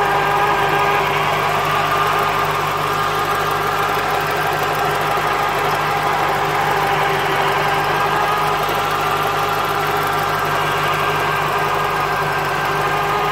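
1996 Corvette C4's LT4 V8 running at a steady speed with a constant tone over it: the gearbox noise of its ZF six-speed manual transmission, shown as a fault.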